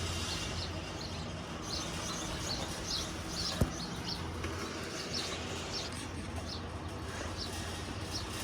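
Small birds chirping, many short high calls repeating throughout, over a steady low hum, with one sharp click about three and a half seconds in.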